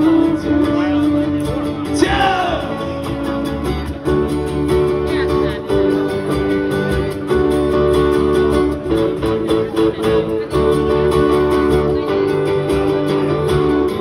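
Live band playing a song, led by a strummed acoustic guitar with a second, electric guitar, heard from outside the venue.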